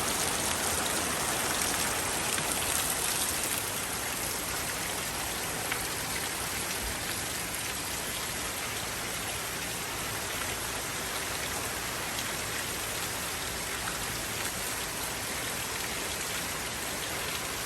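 Steady rain falling, an even patter and hiss, a little heavier for the first few seconds.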